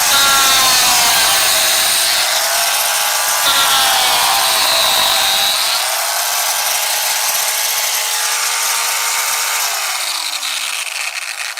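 Angle grinder running under load: a harsh grinding hiss over a high motor whine whose pitch dips twice as it is pressed into the work and then recovers. Near the end the whine falls as the motor winds down.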